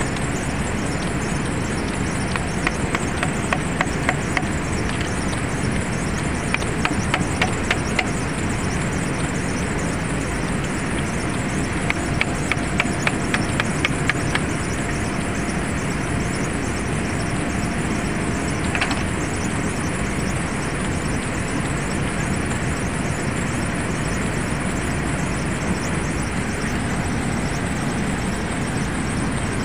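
Runs of quick sharp clicks, several a second, as a screwdriver works the cover screws on an electric motor's terminal box, over a steady rushing background noise.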